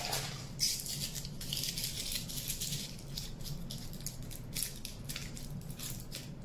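Aluminium foil crinkling and rustling in irregular bursts as it is handled and scrunched by hand.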